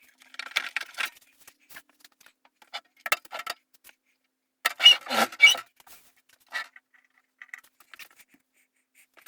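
Fast-forwarded unboxing of a welder: short, clicky bursts of packaging and parts being handled, clattering and rustling, with near-silent gaps between. The loudest cluster comes about five seconds in.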